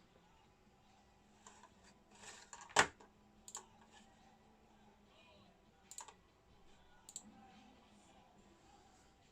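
Scattered single keystrokes on an AULA F2088 mechanical keyboard: a handful of separate clicks a second or so apart, the loudest about three seconds in, rather than continuous typing.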